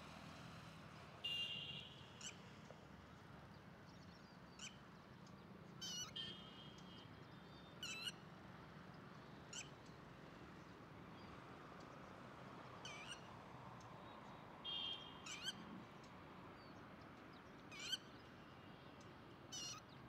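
Wild birds calling: about a dozen short, sharp, high whistled calls, each a quick sweep in pitch, scattered every second or two. They sound over a faint steady hiss of open marsh, with two brief held high notes, one about a second in and one around fifteen seconds.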